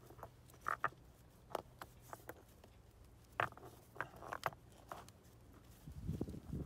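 Small stones clicking and scraping against each other and the rock as they are set into place by hand, in a string of short sharp knocks, with a longer, lower rustle near the end.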